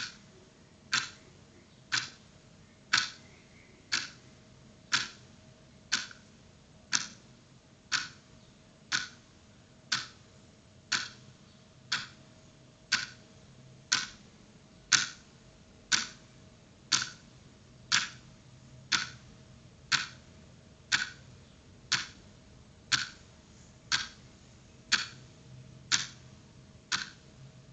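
Clock ticking steadily, one tick a second, over a faint steady hum.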